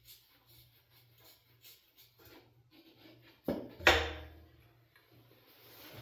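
Faint handling noises, then two sharp metal clanks about three and a half seconds in, the second louder and followed by a short ringing: tools or engine parts knocked or set down during an engine teardown.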